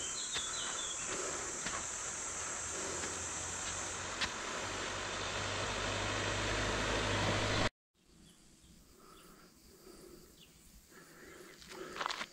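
Steady high-pitched chirring of summer insects, with a low rumble building underneath. It cuts off abruptly about three-quarters of the way through, leaving a much quieter stretch with a few faint knocks and then louder rustling noises near the end.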